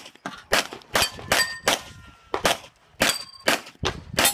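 A rapid string of 9 mm pistol shots from a Glock 34, about two a second. Several are followed by the short ringing clang of steel targets being hit.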